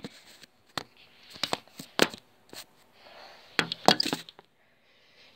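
Handling noise: several sharp knocks with rustling in between as the recording phone is moved about and set down beside a curtain.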